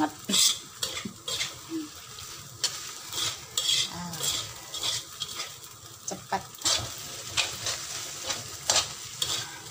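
Metal spatula scraping and knocking against a metal wok in irregular strokes while stir-frying rice vermicelli, the food sizzling lightly underneath.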